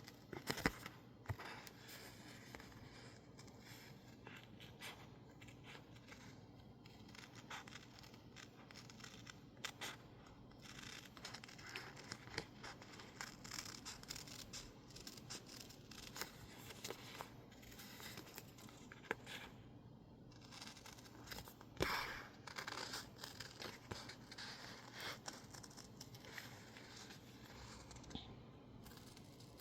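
Scissors cutting out stickers made of masking tape stuck on label paper: soft, irregular snips and paper rustling throughout, with a louder run of snipping about two-thirds of the way through.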